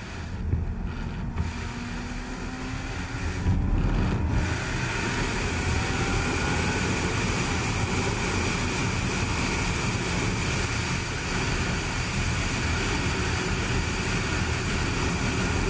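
Honda CBR600RR's inline-four engine accelerating from second gear, its pitch climbing over the first several seconds and growing louder about three seconds in, then a steady rush of wind on the helmet microphone at highway speed.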